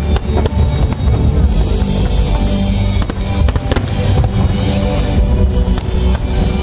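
Fireworks salute going off in irregular bangs and crackles over loud music.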